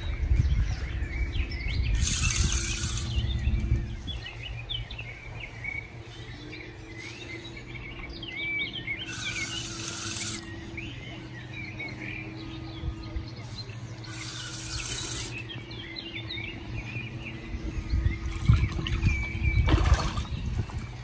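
Songbirds chirping steadily around a lake, broken by three short bursts of hiss. Near the end, a hooked carp splashes at the surface as it is drawn to the bank.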